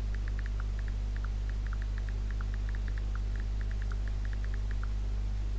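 Steady low electrical mains hum, with a faint run of quick light ticks, about seven a second, that stops near the end.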